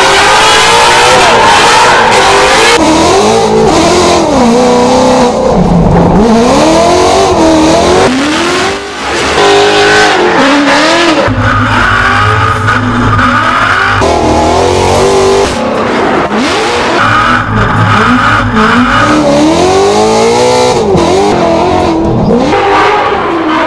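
Drifting Ford Mustang's 5.0 Aluminator V8 revving hard, its pitch climbing and dropping again and again, over tire squeal and skidding.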